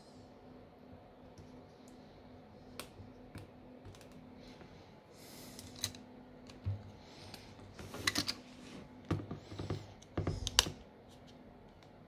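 Small clicks and taps of a precision screwdriver and plastic phone parts as a smartphone's inner plastic frame is screwed down and pressed into place. The clicks are sparse at first and come in quick clusters in the second half.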